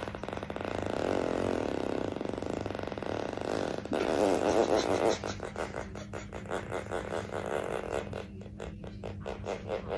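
A long, drawn-out fart: a continuous rasp for about four seconds, a second stronger burst, then breaking up into irregular sputtering pops that fade out.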